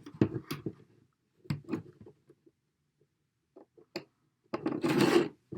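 Hands handling the opened audio interface and its circuit board: scattered small clicks and knocks, and a brief loud rushing hiss about four and a half seconds in.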